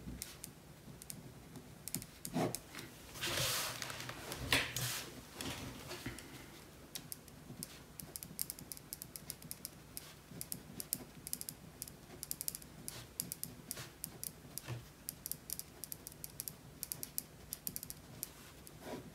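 Ballpoint pen writing on paper: short scratching and tapping strokes, sparse at first and then quick and dense through the second half, with a few louder rustles of hand and paper around the fourth second.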